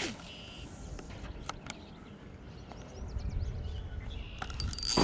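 Quiet lakeside outdoor ambience with a few faint bird chirps and light clicks of rod handling. A much louder noise starts right at the end.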